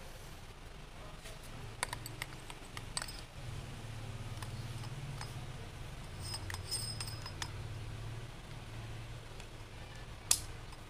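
Small clicks and light metallic taps from overhead fishing reel parts being handled as the spool is fitted back into the reel frame, with a sharper click near the end. A faint steady low hum runs underneath.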